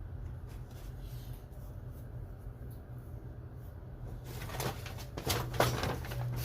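Steady low hum, then from about four seconds in a series of clicks, rattles and rustles as tools and their packaging are handled.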